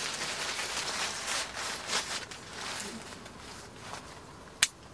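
Tent door fabric rustling in repeated strokes as it is rolled up and fastened overhead, loud at first and fading after about two seconds. A single sharp click comes near the end.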